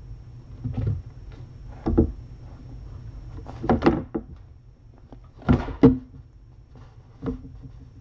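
About six dull thumps and knocks at uneven intervals, the loudest two close together about two-thirds of the way in.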